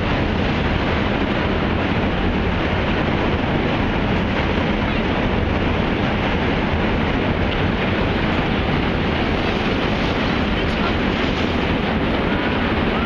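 Steady wind rushing over the microphone, loud and unbroken, with a deep rumble.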